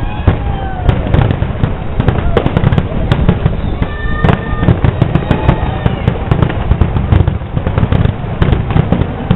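Aerial fireworks finale: a dense, rapid barrage of shells bursting, the bangs overlapping over a continuous low rumble.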